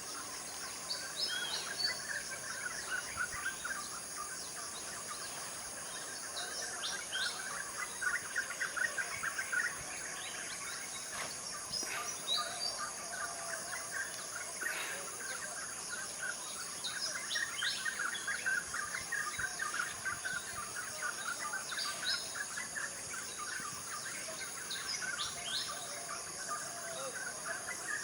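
Forest ambience of many birds chirping and calling over a steady, high-pitched insect drone.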